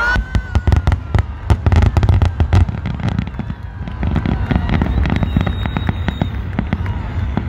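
Fireworks going off: a rapid string of sharp cracks and bangs for the first few seconds, thinning to scattered crackles over a steady low rumble.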